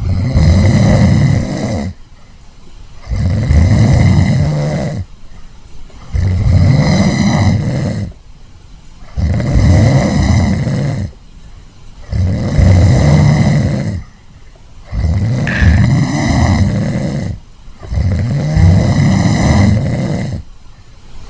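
A person snoring loudly: low, rattling snores repeating roughly every three seconds, with short pauses between breaths.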